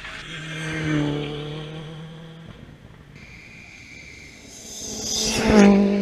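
Rally cars at full throttle on a tarmac stage. One engine passes at its loudest about a second in; then a second car approaches and passes louder still, about five and a half seconds in, its engine note dropping as it goes by.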